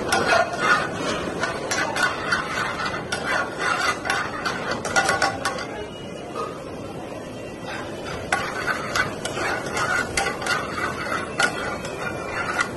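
Metal ladle clinking and scraping against an aluminium frying pan as food is stirred over a gas burner, a rapid, irregular run of sharp clicks that eases off for a couple of seconds midway.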